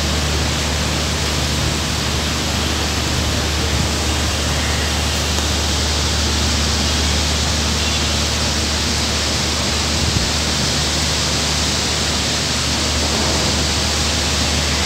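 Heavy rain pouring down: an even, unbroken hiss with a low steady rumble beneath it.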